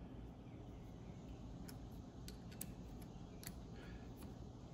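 A handful of faint, sharp metallic clicks as a hex key works the gib adjusting screws on a mini lathe's top slide, with a low steady background hum.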